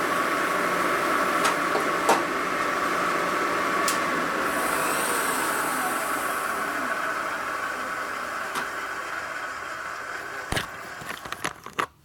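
Milling machine running with a steady whine, gradually getting quieter; a few light clicks, and a sharp click about ten and a half seconds in.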